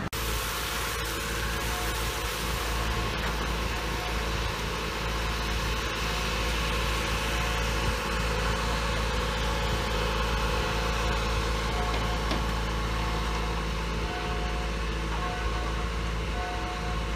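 Engine of heavy equipment running steadily at a constant speed, a low rumble with an even hum.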